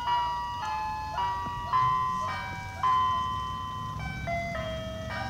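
Ice cream truck's chime playing its jingle over a loudspeaker: a simple melody of held electronic notes, one after another.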